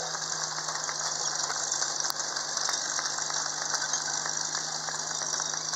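A tracked armoured vehicle driving past: a steady engine drone under the dense rattling clatter of its steel tracks and running gear.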